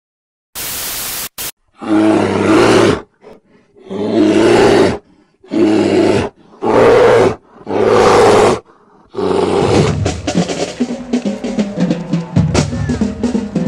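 A short burst of static, then five loud blasts about a second long, each separated by a brief gap. From about nine seconds in, a marching band drumline takes over with rapid snare drum strokes.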